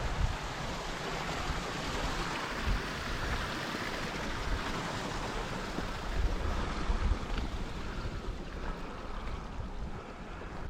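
Steady rushing of wind, with irregular low rumbling gusts buffeting the microphone.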